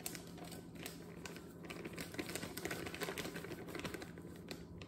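Powdered sugar being poured from its plastic bag into a glass measuring cup: faint, irregular rustling and ticking as the bag is tipped and shaken.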